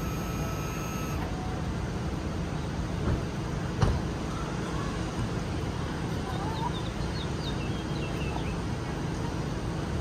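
Steady mechanical hum of the fifth wheel's six-point automatic leveling system running as its jacks level the camper. A few faint high tones drop out about a second in, and there is a single knock about four seconds in.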